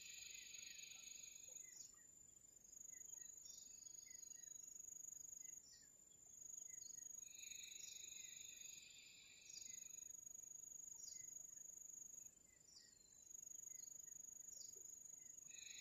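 Faint outdoor insect chorus: one steady, high cricket-like trill, with a second buzzing chorus that swells in and drops out in stretches of a few seconds. Short, high bird chirps are scattered throughout.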